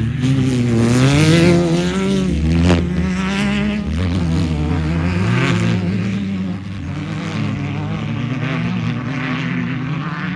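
Off-road race car engine running at high revs, its pitch climbing and dropping with throttle and gear changes, with a sharp knock about two and a half seconds in.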